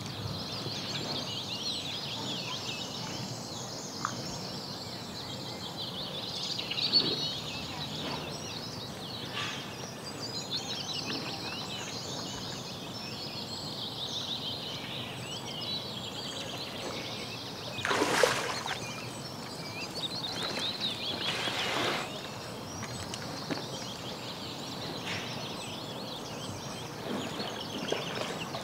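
A chorus of small birds chirping and singing throughout. A few brief louder splashes come as a brown bear moves through shallow pond water, the loudest about two-thirds of the way in.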